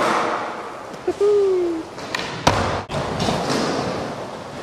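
Skateboard tail and board slapping onto smooth concrete with sharp clacks at the start and again about two seconds in, the urethane wheels rolling between them. A short whoop about a second in.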